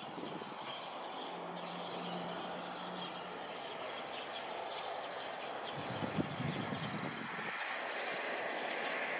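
Steady outdoor city background noise, growing a little louder near the end, with a short low hum about a second in.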